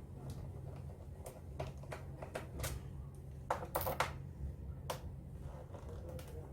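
Scattered sharp clicks and taps of plastic parts and small tools on a laptop being taken apart, with a quick run of clicks a little past halfway, over a steady low hum.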